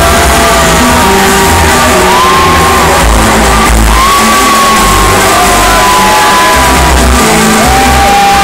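Loud trance music from a festival sound system, with a heavy pulsing bass and a gliding lead melody, heard from within a crowd that shouts and whoops over it.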